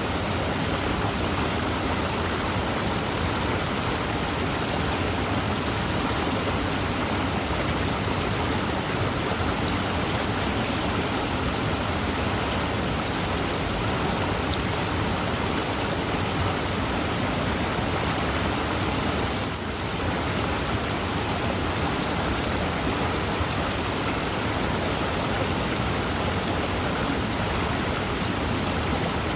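Fast-moving river flowing, a steady, even wash of water noise, with a brief slight dip in level about two-thirds of the way through.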